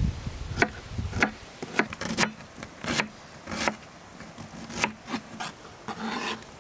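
Large kitchen knife chopping onion on a wooden cutting board: about nine irregular strikes, then a longer scrape near the end as the blade pushes the chopped onion across the board.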